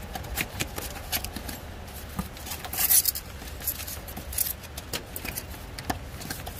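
Scattered small clicks, taps and rustles of objects being handled, with a louder scraping rustle about three seconds in.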